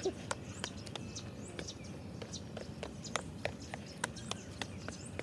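Sneakered footsteps on a concrete path as a person jogs and hops in place: a string of sharp, irregular taps, about two or three a second.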